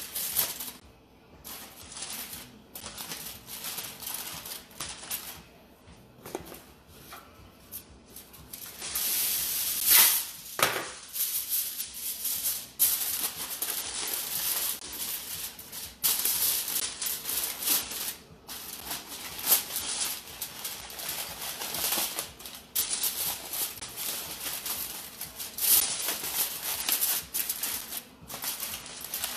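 Aluminium foil crinkling and crackling as it is shaped into a tent and crimped around the edges of a baking dish, in irregular rustles with a louder crackle about ten seconds in.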